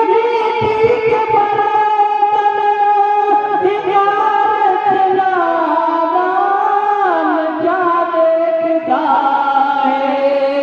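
A man singing an Urdu devotional naat through a PA microphone, drawing out long held notes that glide down around the middle and step back up about nine seconds in.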